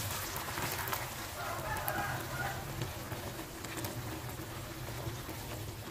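Thick green chili sambal with a little added water simmering in a nonstick frying pan: faint, even bubbling and spitting with small crackles, as a silicone spatula stirs it.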